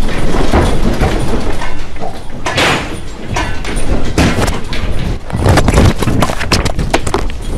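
Knocking and clattering in a TV news studio shaken by an earthquake, irregular throughout. There is a louder rush of noise about two and a half seconds in and a dense run of sharp knocks near the end.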